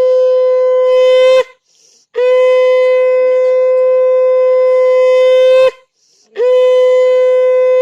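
Conch shell (shankha) blown in three long, loud, steady blasts on one pitch, with short breaths between them; the third blast is still sounding at the end.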